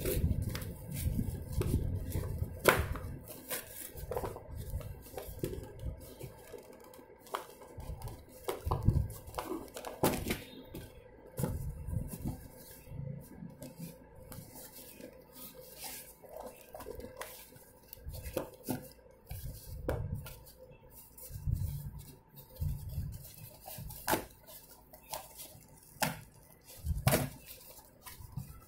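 Corrugated cardboard box being torn and pulled apart by hand: irregular tearing and crackling with sharp knocks and handling thumps.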